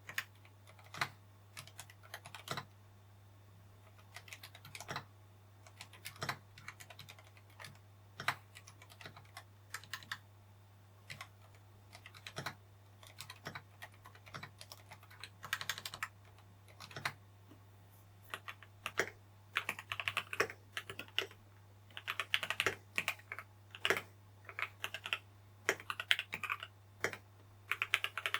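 Typing on a GMMK Pro mechanical keyboard fitted with Akko Haze Pink silent linear switches: soft, muted, scattered keystrokes. About eighteen seconds in, the typing changes to lubed and filmed Lynx switches, and the keystrokes come faster, louder and brighter.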